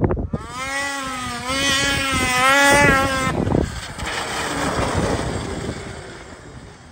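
Snowmobile with a Straightline Performance ultralight aftermarket muffler at full throttle. Its engine holds a high, wavering pitch for about three seconds, then drops into a rougher rushing sound that fades as the sled passes and moves away. The can is loud enough to distort the camera's audio.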